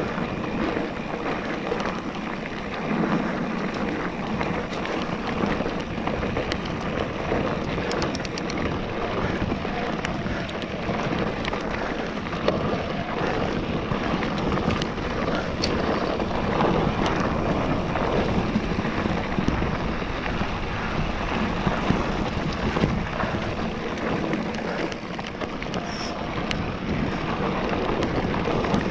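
Wind rushing over the camera microphone and tyres running over a dry dirt trail as an electric mountain bike rolls downhill, with the bike rattling and ticking over small bumps throughout.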